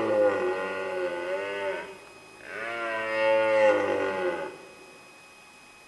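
A long, deep, animal-like call, heard twice with a short gap, each call wavering and bending in pitch; it is either the unexplained call recorded in the woods or the red deer stag's roar being played for comparison.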